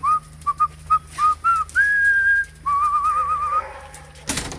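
A person whistling to call dogs: a string of short rising chirps, then a long held note and a warbling trill. A brief knock comes near the end.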